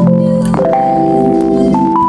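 Background music: a simple melody of held notes stepping in pitch over steady chords, with a few faint clicks under it.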